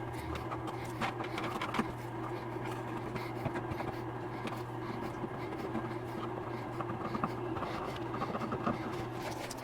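Small clicks and handling noises from plastic parts and PTFE tubing being fitted, over a steady low hum.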